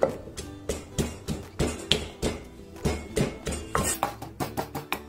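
Wooden pestle pounding red chillies in a clay mortar, about three dull strikes a second and quickening near the end, crushing them coarsely.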